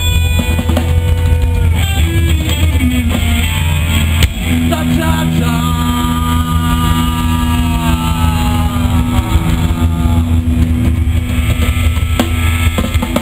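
Live rock band playing loud: electric guitars with sustained, bending lead notes over bass and drums.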